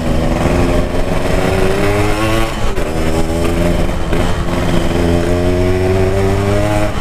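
Yamaha RX-King's two-stroke single-cylinder engine under way, its pitch climbing steadily, dropping briefly a little under three seconds in, then climbing again.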